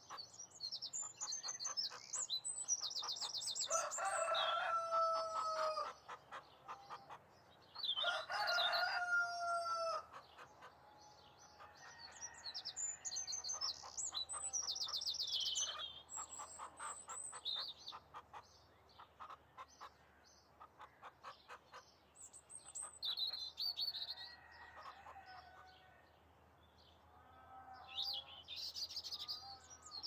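A rooster crows twice, about four and eight seconds in, each crow held and then dropping at the end, over small birds chirping throughout. Hens cluck in between.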